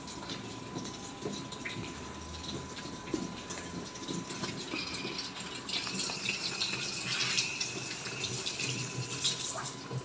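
Water running into the tub of an LG inverter top-load washing machine as it fills, a steady gushing that grows a little louder about halfway through. The inlet water now flows into the tub after the fault in which water would not go in.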